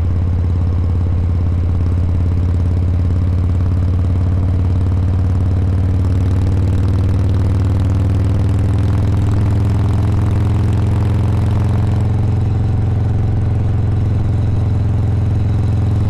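Harley-Davidson Heritage Softail's Milwaukee-Eight V-twin engine running steadily at highway cruising speed, heard from the rider's seat. Its pitch rises gently around the middle.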